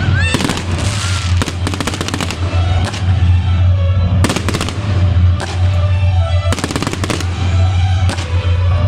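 Fireworks going off in rapid crackling clusters every couple of seconds, with a short rising whistle near the start, over loud music with a steady deep bass.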